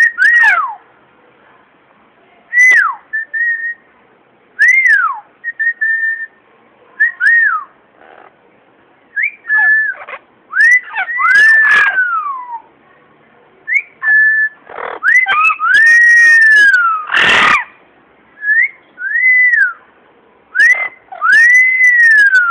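Yellow-crowned Amazon parrot whistling: a string of short, clear whistled notes, many rising and then falling, some held level, with short pauses between them. A couple of brief harsh noises break in past the middle.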